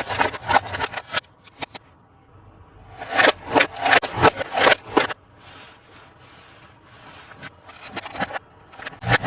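Rubbing and scraping from hands handling a Paw Patrol Rubble toy bulldozer truck, in irregular bursts. There is a short pause about two seconds in, and a dense stretch of scraping a second or so later.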